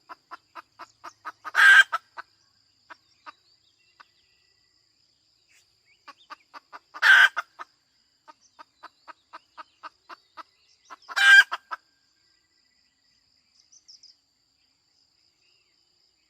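Hen cackling: runs of short clucks, about three a second, broken by three loud drawn-out squawks, then falling quiet about three-quarters of the way through.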